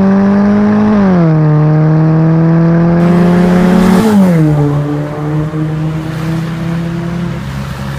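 2013 Ford Fiesta engine heard through an aftermarket full exhaust system, pulling hard. Its note climbs steadily, then steps down about a second in and again about four seconds in, as it shifts up. After the second shift it fades as the car goes by.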